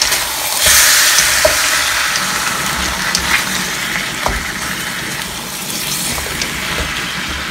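Pork rib pieces sizzling in a hot wok as they are tossed with two wooden spatulas, with a few knocks of the wood against the pan. The sizzle is loudest about a second in and eases a little after.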